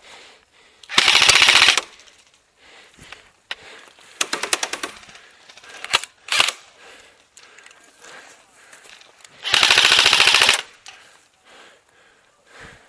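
Airsoft electric rifles firing full-auto bursts: a loud rapid burst about a second in, a quieter, slower string of shots around four seconds, two single shots near six seconds, and another loud burst lasting about a second near ten seconds.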